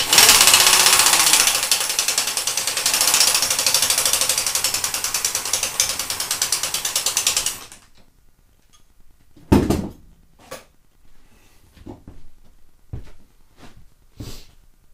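A power ratchet running on a bolt for about seven and a half seconds, a fast, even ratcheting buzz that cuts off suddenly. A sharp knock follows about two seconds later, then a few light clicks and taps.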